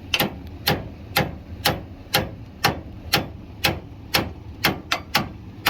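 Hammer blows on a steel snowplow mounting pin, struck in a steady rhythm of about two a second to drive the pin out.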